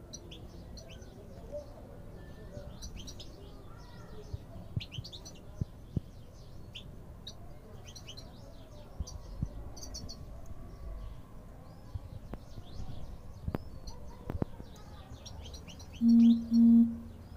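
European goldfinches chirping, with short high twittering calls scattered throughout and a few sharp clicks. Near the end come two short, loud, low beeps in quick succession.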